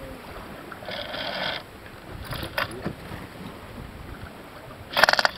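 Farr 30 racing sailboat's sheet-trimming deck hardware clicking in ratcheting bursts, one about a second in and a louder one near the end, with lighter clicks between. Under it runs a steady hiss of wind and water.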